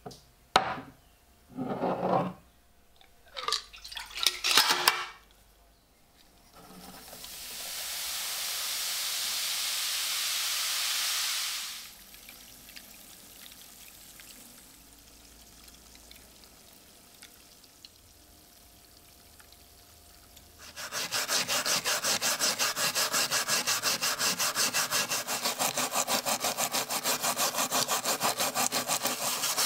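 A few sharp knocks and clicks, then a steady hiss that swells and stops about twelve seconds in. From about twenty-one seconds there are quick, even back-and-forth strokes of hand abrading work on the knife, sanding or filing by hand.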